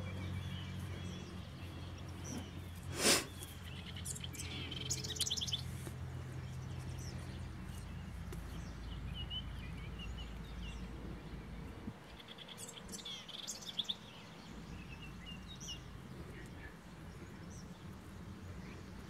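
Birds chirping and trilling in the background in several short bursts, over a low steady hum that fades about twelve seconds in. One sharp knock about three seconds in.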